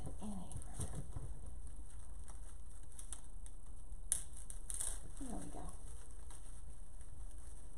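Rustling and crinkling of artificial silk and plastic flower and fern stems being handled and pushed into a floral arrangement, with a few short clicks, the sharpest about four seconds in, over a steady low hum.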